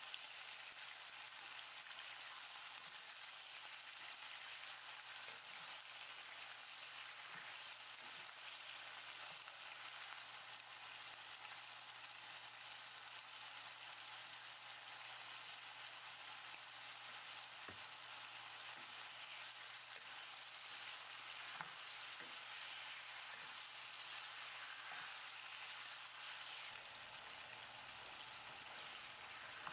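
Diced pork sizzling steadily as it fries in oil in a nonstick pan, with a few light knocks from a wooden spatula stirring it.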